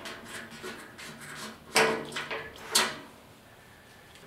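A gas barbecue's battery push-button igniter being pressed: two sharp clicks about a second apart, with fainter clicks around them. The owner thinks the igniter is not working.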